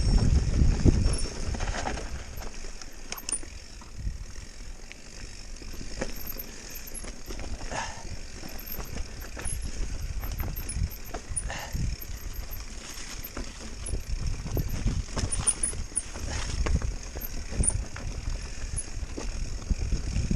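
Mountain bike rolling over a rough trail: the bike's chain and frame rattle with scattered knocks, and wind rumbles on the microphone, heaviest at the start and near the end.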